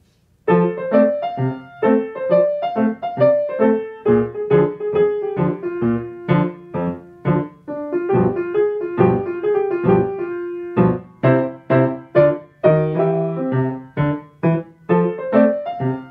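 Yamaha grand piano being played, starting about half a second in: a quick run of short, detached notes over a steadier middle line.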